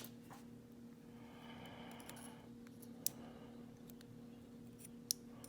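Two short, sharp clicks of small metal lock parts and tools being handled, about three and five seconds in, with soft rubbing between them over a low steady hum.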